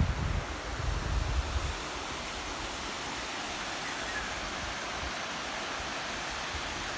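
Waterfall rushing: a steady even hiss of falling water. Wind buffets the microphone with low gusty rumbles for the first couple of seconds.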